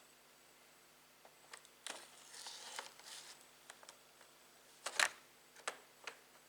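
Handling noises: a scraping rustle lasting about a second and a half, then several sharp clicks of small hard objects, the loudest about five seconds in.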